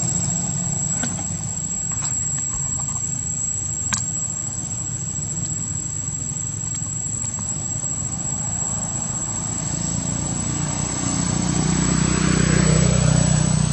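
Motor vehicle engine running steadily, getting louder near the end as it passes close by. A steady high-pitched whine and a few faint clicks run beneath it.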